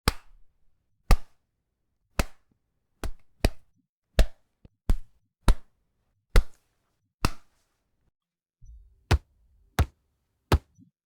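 Punch impact sound effects: about a dozen separate sharp, heavy hits, roughly one every half to one second, each dying away quickly.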